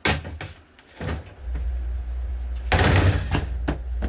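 A broken plastic box fan being smashed: a sharp crack with a few lighter knocks at the start, another knock about a second in, and a louder crashing clatter about three seconds in. From about a second and a half in, a low steady hum runs under the impacts.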